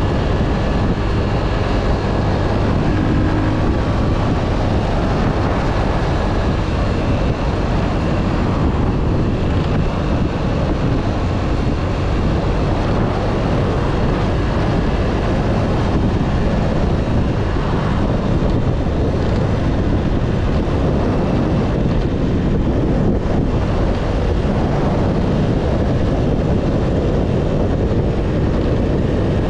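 Wind rushing over the microphone of a helmet-mounted camera as a motorcycle is ridden along at road speed, with the bike's engine running steadily underneath.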